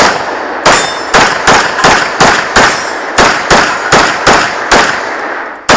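Rapid pistol fire during a USPSA stage run: about a dozen sharp, loud shots, mostly in quick pairs two to three a second apart, with a short break near the end before firing resumes.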